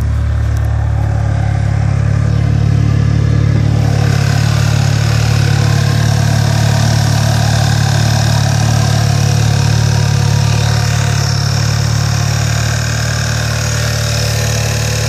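Skoda Octavia A5 engine idling steadily, with fainter higher steady tones joining about four seconds in; the owner is waiting for an intermittent squeak from the engine that comes on about a minute after start-up.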